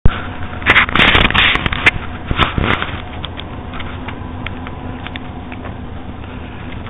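Close rustling and crackling right at a handheld recorder's microphone, loud and dense with sharp clicks for about the first three seconds. It then settles to a steady hiss with a faint hum and a few scattered ticks.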